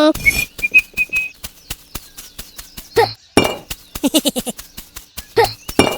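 A rapid, uneven string of small hard clinks and clicks, several a second. A brief warbling whistle-like tone comes in the first second, and a few short squeaky voice-like calls sound midway and near the end.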